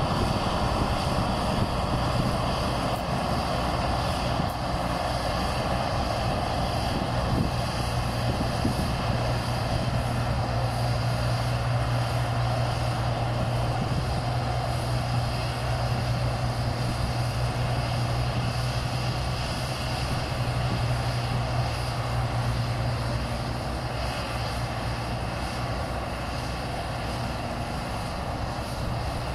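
New Holland crawler combine harvester's diesel engine running steadily under load, with a steady low hum that strengthens about a third of the way in and eases off about two-thirds of the way through.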